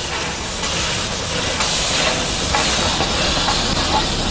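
Steam locomotive passing close by, its steam hissing over the rumble of the running gear. The hiss grows louder about half a second in and again a second later as the engine draws level.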